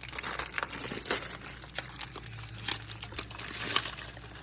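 Plastic wrapper of an instant ramen noodle pack crinkling as it is opened, with a run of irregular small crackles.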